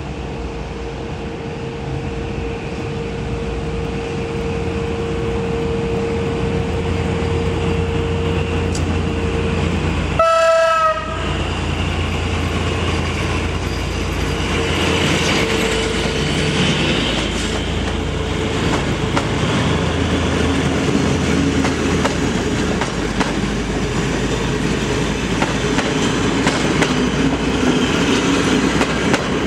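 PKP SU45 diesel locomotive with a Fiat engine approaching and passing at speed, its engine running steadily. It sounds its horn once, briefly, about ten seconds in. Its passenger coaches then roll past with wheels clicking over the rail joints.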